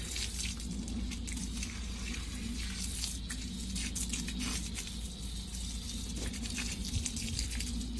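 Garden hose spraying water over a sheep's fleece, with steady splashing and pattering and scattered drips and squelches.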